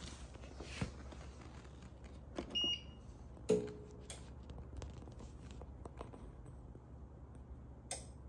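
APC Smart-UPS C1500 beeper giving one short, high beep a few seconds in, the unit's alarm at having no batteries fitted. Around it are several sharp clicks and a loud thump just after the beep, over a low steady hum.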